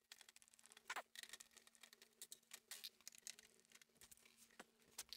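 Near silence with a few faint, scattered clicks and taps of a screwdriver working screws out of the printer's plastic housing.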